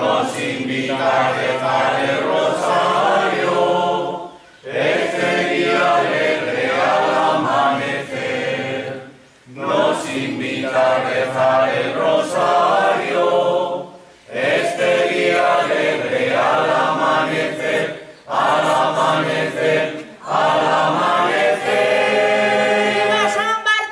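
A group of voices singing together in unison, in phrases of about four to five seconds broken by short pauses.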